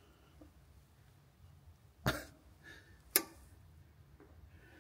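Quiet room tone broken by two short sudden sounds: a brief burst about two seconds in, then a sharp click about a second later.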